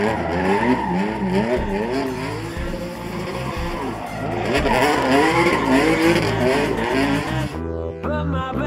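Hyundai Genesis Coupe drift car sliding in tight circles, its engine revving up and down over and over as the throttle is worked, with the tyres squealing and skidding on asphalt.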